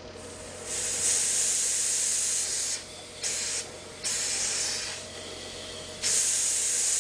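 Spray nozzle hissing in four bursts with short pauses between: a long one of about two seconds, two short ones, then another long one starting about six seconds in. This is a coating being sprayed, which splatters if the spray runs too long.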